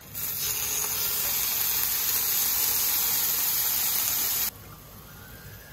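Strips of beef striploin sizzling on a hot electric griddle plate as they are laid down with tongs. The sizzle is a loud, steady hiss that drops abruptly to a much quieter sizzle about four and a half seconds in.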